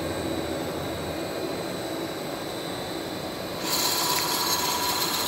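CNC lathe running, a steady machine noise with a thin high whine. About three and a half seconds in, the sound turns louder and hissier.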